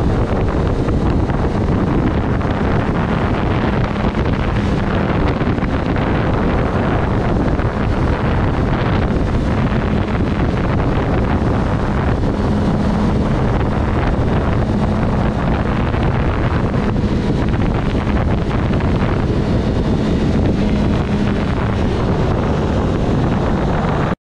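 Wind rushing hard over the microphone of a sport motorcycle riding at road speed, with the engine's steady hum underneath.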